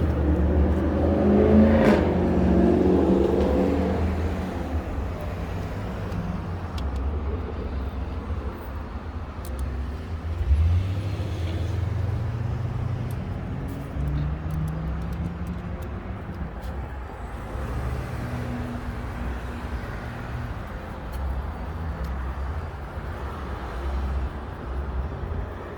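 Motor vehicle engine rumble, loudest in the first few seconds and then settling to a steadier, quieter rumble, with a single sharp knock about ten seconds in.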